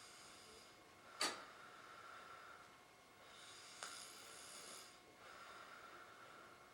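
Faint snoring of a sleeping man: breaths with a whistly hiss that rises and falls about every two seconds. A sharp click about a second in is the loudest sound, with a fainter click near the middle.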